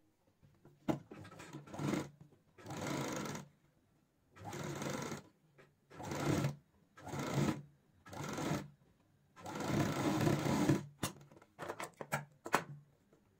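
Domestic sewing machine running in short starts and stops, about seven runs of half a second to a second each, as it stitches a bias strip onto fabric strips to form piping. Near the end come several quick sharp snips of scissors cutting the thread.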